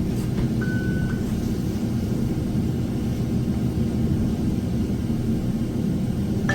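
A steady low background rumble, with a single electronic beep, likely from the register or card reader, about half a second in.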